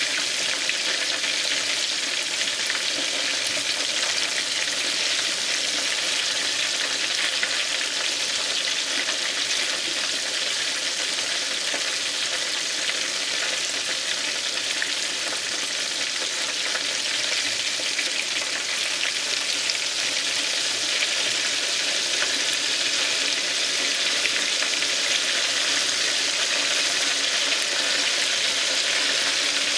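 Chicken wings frying in hot oil in a shallow frying pan: a steady, dense sizzle.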